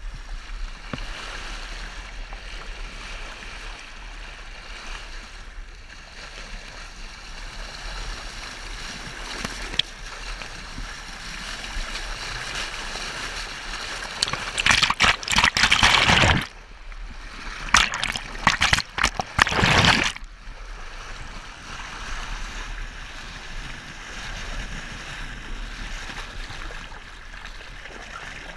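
Water rushing along a moving sailboat's hull, heard close to the waterline beside the bow as a steady hiss. About halfway through, the bow wave splashes over the camera in two loud bursts, each about two seconds long.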